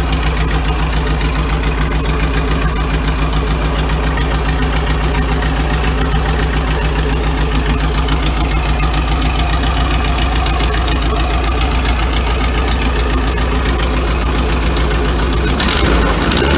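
Air-cooled 2.0-litre Porsche flat-four breathing through twin Weber 44 IDF carburettors with open velocity stacks, idling steadily with an even pulse. Near the end the revs rise briefly as the throttle linkage is worked.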